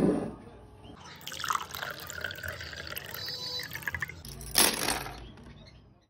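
Water being poured into a clear cut-glass tumbler, splashing and trickling unevenly, with one brief louder burst about four and a half seconds in.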